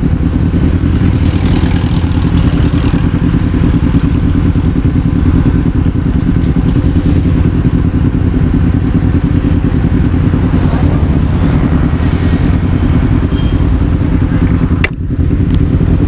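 250cc motorcycle engine running at a steady speed on the move, with a brief drop in level near the end.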